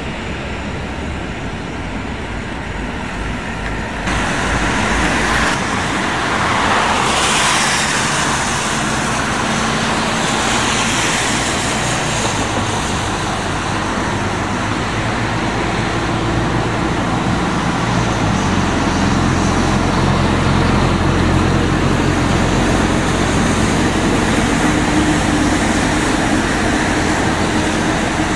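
City transit bus engines running as buses pull out, getting louder about four seconds in, with a rush of hiss around seven seconds and a deeper, stronger engine note from about eighteen seconds on.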